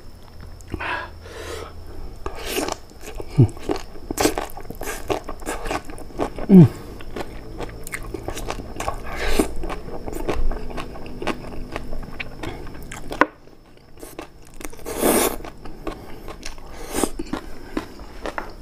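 Close-miked mouth sounds of eating boiled papaya stems and leaves in peanut sauce: irregular wet chewing and smacking, with two short falling squeaks a few seconds apart and a longer slurp of the greens later on.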